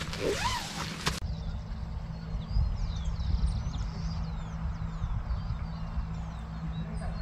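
Birds chirping, with many short quick calls, over a steady low rumble.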